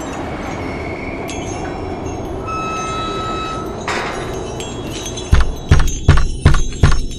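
Horror sound-effects mix: a low rumbling noise with a few brief ringing chime tones, then about five seconds in a run of loud, heavy, evenly spaced thuds, about two or three a second.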